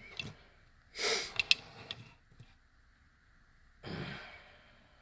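A person's breath noises: a sharp intake through the nose about a second in, with two small sharp clicks just after it, then a softer breath out about four seconds in.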